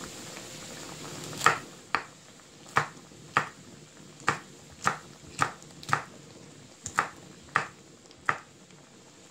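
Kitchen knife slicing chili peppers on a wooden cutting board: about a dozen sharp taps of the blade hitting the board, spaced a half second to a second apart.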